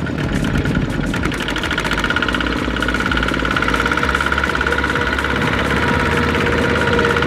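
Single-cylinder diesel engine of a two-wheel walking tractor running under load with a rapid, even chugging beat as it pulls a trailer loaded with rice sacks through a muddy field.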